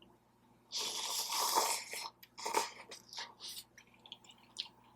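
Close-miked eating: a noisy bite about a second in, then a string of chewing and wet mouth smacks that tails off.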